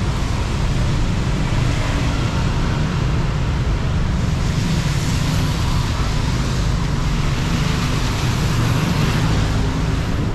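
Steady city road traffic on wet asphalt: engines running low and tyres hissing over the wet road.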